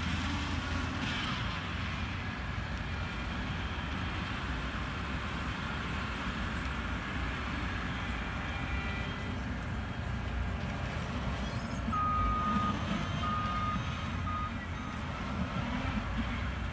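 Skid-steer loader engine running steadily while it grades with its dozer blade. A high electronic beep sounds three or four times, each lasting up to about a second, from around twelve seconds in.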